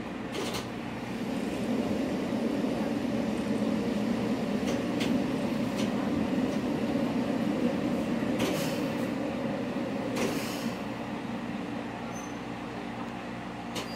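MRT300 diesel railcar running under power, its engine drone growing louder about a second in, then easing off about ten seconds in. A few sharp clicks are heard along the way.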